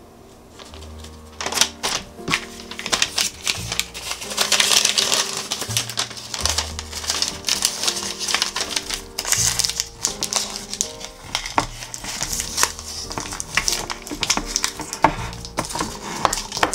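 Brown parchment paper crinkling and rustling in the hands as it is folded down over the top of a glass jar, starting about a second in, over background music.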